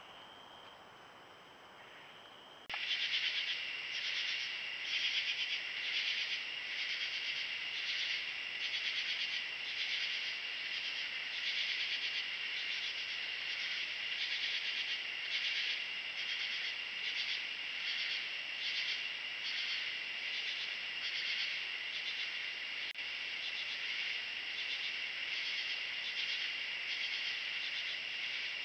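Chorus of night insects, a dense high-pitched trilling that pulses about twice a second, cutting in loudly about three seconds in. Before it, a fainter steady high insect trill.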